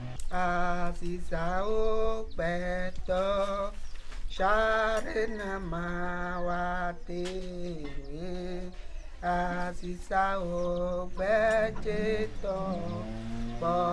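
A voice singing a slow melody in phrases of one to two seconds, with short breaks between them and held notes that waver.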